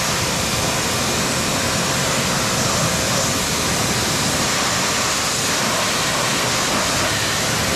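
A RYOBI 2300 PSI electric pressure washer's high-pressure water jet spraying steadily onto a muddy dirt bike's frame and engine, an unbroken rush of spray.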